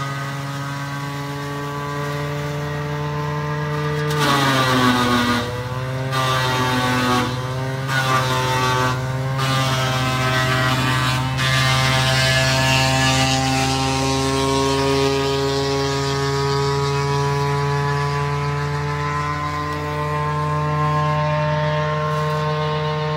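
Zanon 160 T drum wood chipper running off a tractor's PTO with a steady hum. About four seconds in a branch is fed in: the hum drops in pitch under the load while the drum chips the wood noisily with several sharp cracks, then over the following seconds the hum climbs back up to full speed.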